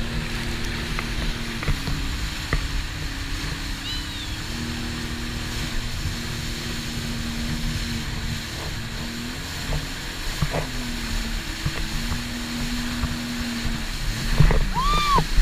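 Jet ski engine running at speed, its pitch stepping up and down as the throttle changes, over a rumble of wind and water from the hull crossing choppy water. A louder bump near the end.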